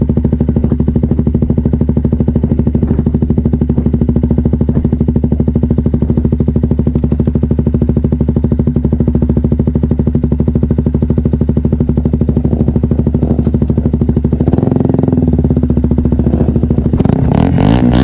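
KTM 125 Duke's single-cylinder four-stroke engine idling steadily with a rapid, even pulse. A little past fourteen seconds in it picks up briefly, and near the end the throttle is blipped, the revs rising and falling.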